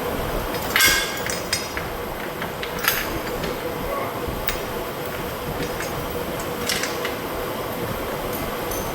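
Steady hiss of compressed air being blown into a chained split-rim truck tire over a faint hum, with a few sharp ringing metal clinks about a second in, near three seconds and near seven seconds.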